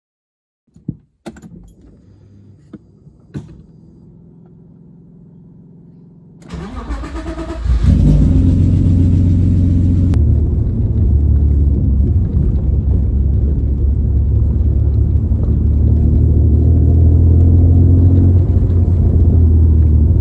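BMW E36's M52 straight-six cranking for about a second and catching about eight seconds in, then idling steadily. Before the start, a few sharp clicks and a faint steady hum.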